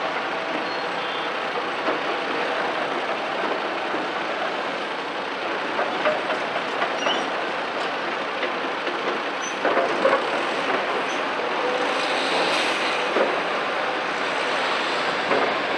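CAT 374F L excavator, its C15 ACERT diesel engine and hydraulics running steadily, while its demolition grapple works concrete rubble, with scattered knocks and scrapes of concrete and metal, the loudest about ten seconds in and again twelve to thirteen seconds in.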